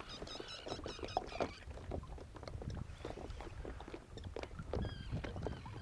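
Faint sounds aboard a small fishing boat on a river: a string of light, irregular ticks and knocks, with quick high chirps in the first second and a half.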